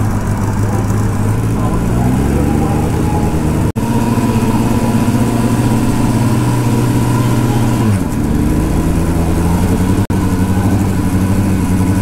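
Kawasaki ZX-10R motorcycle engine running steadily during an exhaust emissions test, with the tester's probe held in its aftermarket exhaust. Its pitch falls a little about eight seconds in.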